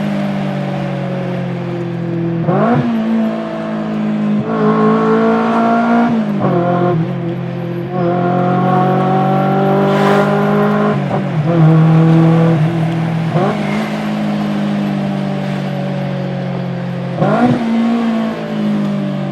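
Modified 280 hp Maruti Baleno's engine running and revving. Its pitch drifts slowly, broken every few seconds by sudden jumps and quick rev blips.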